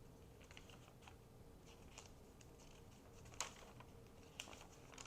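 Faint rustling and light ticking of paper as junk journal pages are handled and turned, with a few sharper ticks, the loudest about three and a half seconds in.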